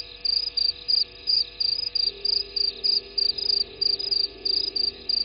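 A cricket chirping: an even run of short, high chirps, about four or five a second, many of them in pairs.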